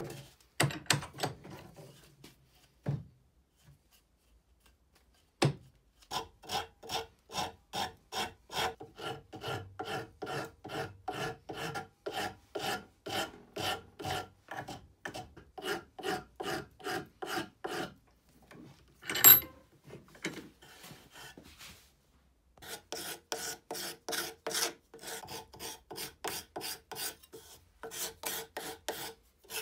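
A rasp being worked back and forth over an ash wood hammer handle to shape it, in steady strokes about two a second. The strokes pause twice, and there is one sharp, loud knock about two-thirds of the way through.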